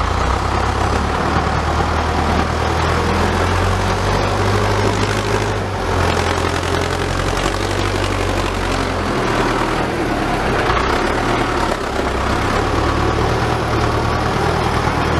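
Farm tractor engine running steadily under load as its front dozer blade pushes soil, with a deep, even rumble. The engine note shifts a few times as the load changes.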